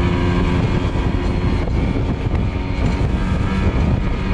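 Outboard motor running steadily as the boat is under way, its even engine note partly covered by a continuous rush of noise.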